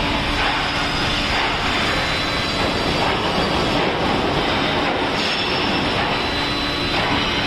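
Steel rolling mill cooling bed and roller table running: a steady clattering, grinding mechanical noise of steel bars moving over the rollers and rake notches, with a steady hum underneath and a few faint clanks.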